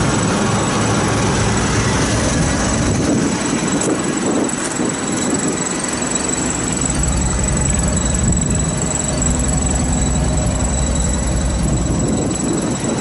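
A 1980 Jeep's engine idling steadily.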